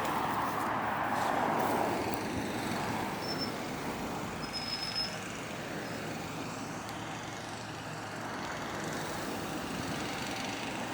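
Road traffic going by: a vehicle passes loudest in the first couple of seconds and fades away, leaving a steady traffic noise.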